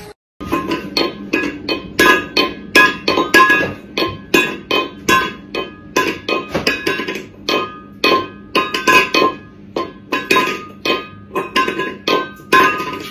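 Metal food bowl repeatedly banged and knocked by a cat's paw, an irregular run of sharp clanks about three a second, each with a brief metallic ring.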